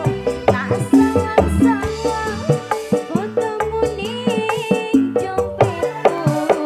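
Live band music with a steady percussive beat, a stepping bass line and a melody over it.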